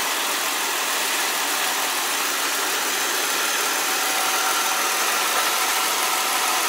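2003 Ford Explorer XLT's 4.0-litre V6 idling steadily with the air conditioning on, smooth running with no knocks. A faint steady whine joins about four seconds in.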